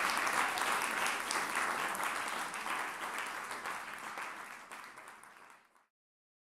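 Audience applauding, the clapping fading out gradually and cutting off just before six seconds in, followed by silence.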